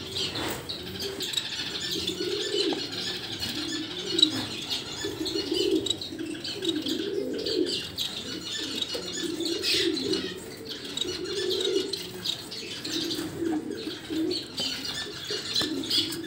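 Pigeons cooing in a continuous low, wavering warble, with high chirps scattered over it.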